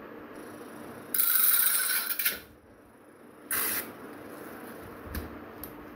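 Homemade 12 V angle grinder built on a 775 DC motor, running with a steady hum while its abrasive cut-off disc grinds a thin iron rod. A loud, harsh grinding comes about a second in and lasts about a second, followed by a shorter grinding touch. The rod ends cut through.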